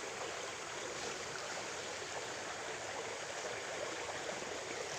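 Small stream running steadily: an even hiss of flowing water with no breaks.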